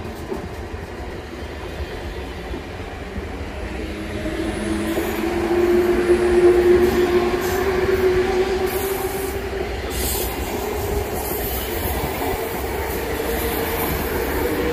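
Z2N double-deck electric commuter train of the RER D running past on the rails, with a steady rumble of wheels on track. A humming tone swells about halfway through, then eases as the train moves away.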